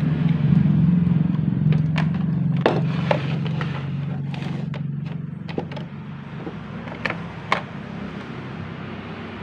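Clicks and knocks from handling a small plastic radio, its battery compartment, wires and alligator clips, a few sharp ones at a time, over a steady low hum that is loudest in the first two seconds and then eases off.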